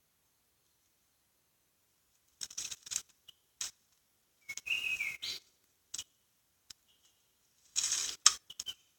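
Brief bursts of rustling and scraping as plant fibre is handled and woven by hand, with a short chirp-like whistle about five seconds in. Dead silence lies between the bursts.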